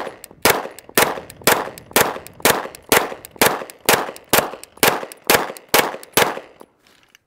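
Steady rapid gunfire: about a dozen 9mm shots, roughly two a second, fired into a ballistic helmet, stopping about six seconds in.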